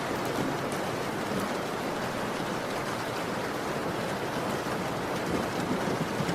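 Steady rain, an even hiss with scattered fine drop ticks.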